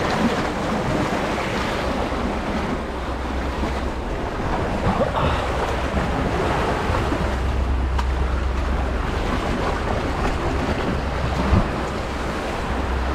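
Steady rush of wind buffeting the microphone over the wash of sea water, with a constant low rumble.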